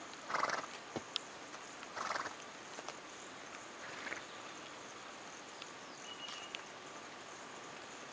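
Plains zebras cropping grass: three short rasping tears of grass being pulled and bitten off within the first four seconds, the last one fainter, with a few light clicks between them.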